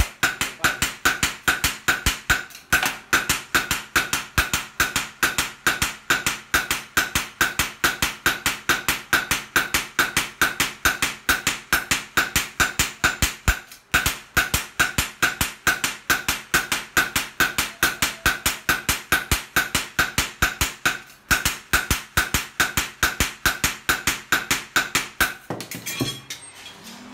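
Two hand hammers forging a steel knife blade on a steel post anvil: fast, even blows, about four a second, each ringing. The blows pause briefly three times and stop shortly before the end.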